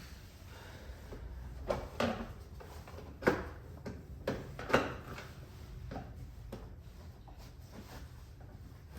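Scattered sharp clicks and knocks, about six of them, the loudest a little over three seconds in and near five seconds in, from hands and tools working loose a car door's trim and fittings.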